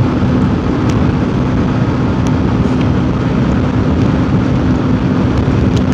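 Yamaha motorcycle cruising at highway speed: a steady rush of wind over the microphone, with the engine running at an even pitch underneath.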